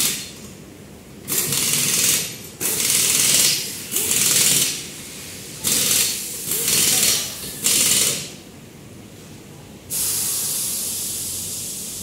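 Pneumatic impact wrench rattling on a wheel's lug nuts in about seven short bursts of roughly a second each, then a longer, steadier run near the end that slowly fades.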